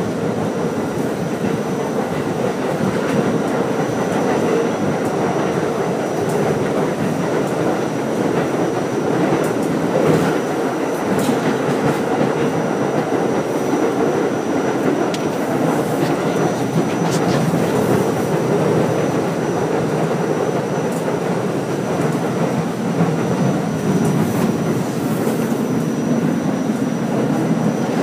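Interior of an R44 subway car in motion: a steady rumble of wheels on rail with scattered clacks and a thin, steady high-pitched whine.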